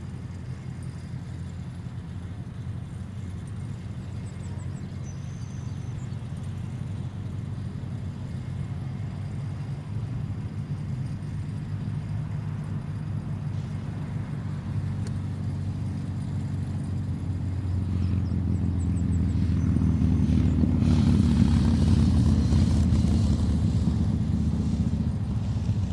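An engine droning steadily, growing louder over the last third as it draws near, loudest a few seconds before the end, then easing off.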